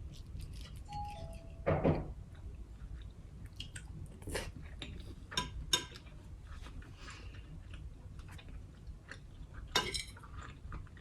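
Eating sounds: chewing, with scattered clicks and clinks of utensils against dishware. The loudest clatters come about two seconds in and near the end.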